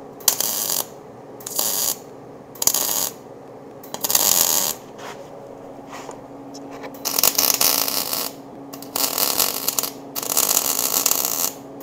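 MIG welder arc crackling in a series of tack welds on steel frame tubing: short bursts of about half a second at first, then longer runs of a second or more in the second half, with pauses between them.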